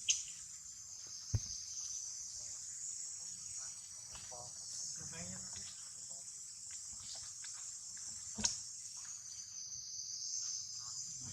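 Steady high-pitched chirring of an insect chorus, with three sharp clicks: right at the start, about a second in, and about three-quarters of the way through.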